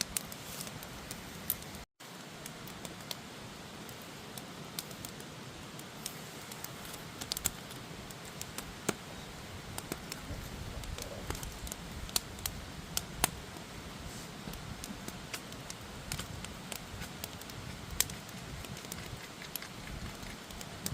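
Wood campfire crackling, with irregular sharp pops and snaps over a steady hiss. The sound drops out for a moment about two seconds in.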